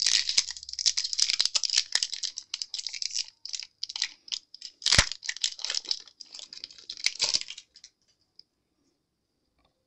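Foil wrapper of a Pokémon card booster pack being torn open and crinkled, with many small crackles and one sharp snap about halfway. The crinkling stops about eight seconds in.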